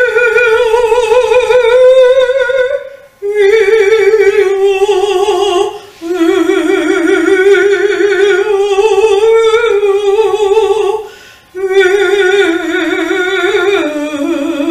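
A female voice student singing long held phrases with a wide vibrato, in four phrases separated by short breaths about three, six and eleven and a half seconds in.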